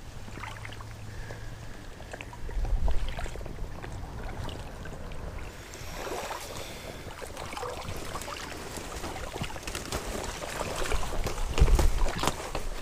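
Leaves and branches rustling and crackling as someone pushes through creekside brush, starting about six seconds in, with low rumbling bumps on the microphone around three seconds in and again near the end.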